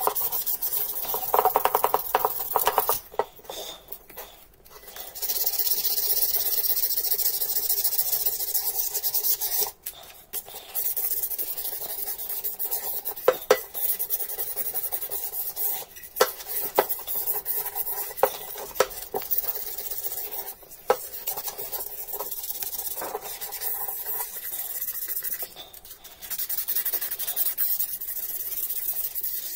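A cordless rotary tool's spinning abrasive bit grinding tarnish off a copper bowl: a harsh, high rasping hiss that stops and resumes several times as the bowl is repositioned, with scattered sharp ticks of metal on metal. Near the end, sandpaper is rubbed by hand over the copper.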